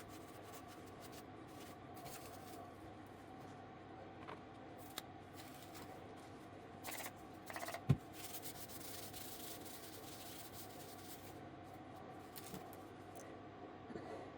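Rubbing and scraping handling noises over a steady hum, with a few short scratchy bursts and a sharp knock about eight seconds in.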